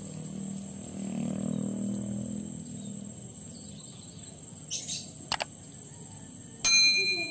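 Subscribe-button overlay sound effects: two quick mouse clicks about five seconds in, then near the end a sharp click with a short bright bell ding, the loudest sound here. A steady high whine runs underneath.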